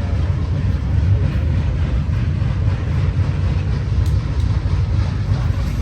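Vehicle engine running with a steady low rumble, the pitch holding level without revving.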